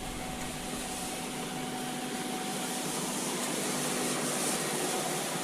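Steady rush of running water from a river and waterfalls, a constant hiss-like roar growing a little louder toward the end.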